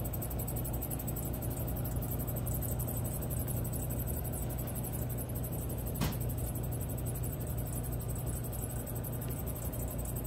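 Steady machine hum and hiss of a screen-printing conveyor dryer running, its blower and belt drive going without change. A single sharp click about six seconds in.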